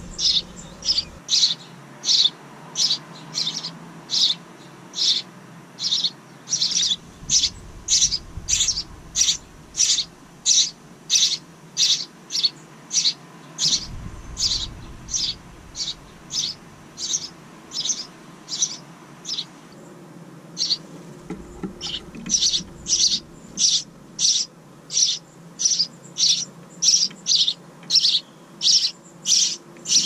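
House wrens chirping: short, high chirps repeated evenly about twice a second, with a brief break about twenty seconds in.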